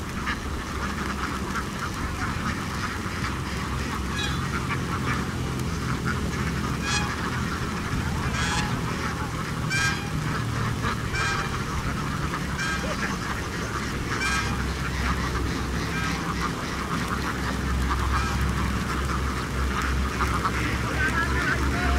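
A large flock of domestic laying ducks quacking together in a dense, continuous chorus, with single louder quacks standing out every second or so, over a low rumble.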